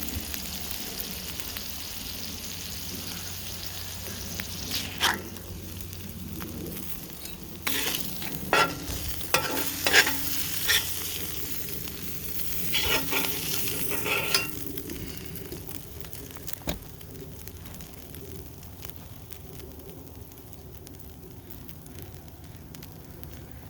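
Smash burgers and onions sizzling on a Lodge cast iron griddle. Between about 5 and 15 seconds in there is a run of sharp metal clanks and scrapes on the griddle, some of them ringing briefly, as the burgers are worked and lifted off.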